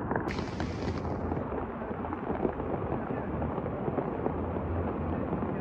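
Fast-flowing muddy floodwater rushing, a steady dense roar with small crackles.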